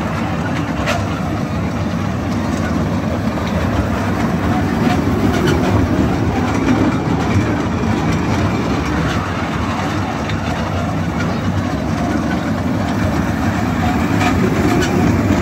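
Small kiddie-ride train running around its circular track: a steady low rumble of the cars rolling on the rails, with occasional light clicks.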